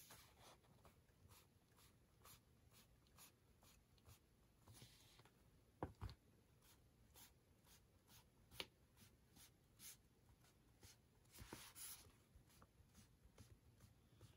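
Felt dot-tip of a Clean Color Dot marker dabbing dots onto planner paper. The soft taps come about two to three a second, with an occasional slightly louder knock.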